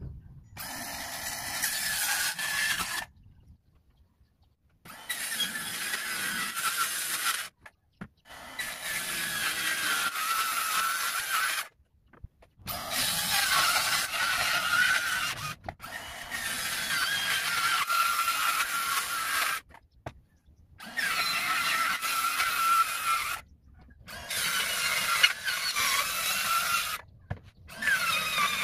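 Circular saw cutting a sheet of 3/4-inch marine plywood along a guide rail. The motor whine wavers under load, in several stretches of two to three seconds each, each stopping abruptly with brief silences between.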